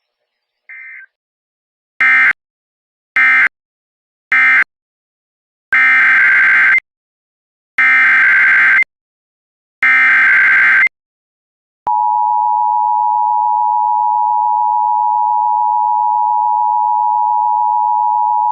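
Emergency Alert System data bursts and attention signal. First come three short screeching digital bursts, the end-of-message code closing one alert, then three longer bursts of the SAME header that opens the next. After a brief gap the loud, steady two-tone EAS attention signal starts and holds.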